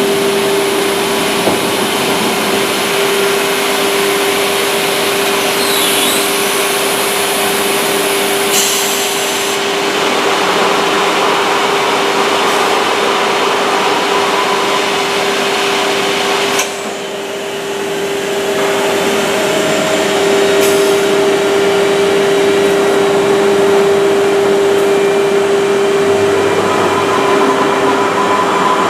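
Woodworking machine running steadily: a constant motor hum under a loud rushing noise, which dips briefly and then picks up again a little past halfway.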